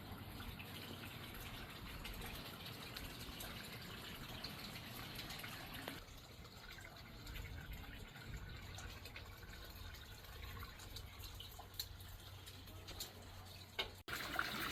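Faint running or trickling water, with a few small drips.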